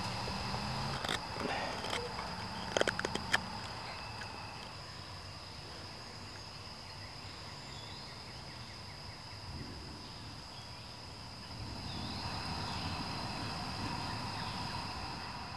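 Night insects, crickets or katydids, keep up a steady high-pitched chorus. A few sharp clicks come in the first few seconds.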